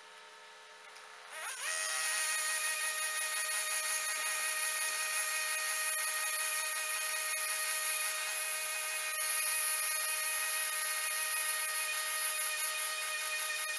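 Petrol disc cutter (rail saw) revving up about a second in, then running flat out as its abrasive disc cuts through a steel rail: a steady whine over a grinding hiss.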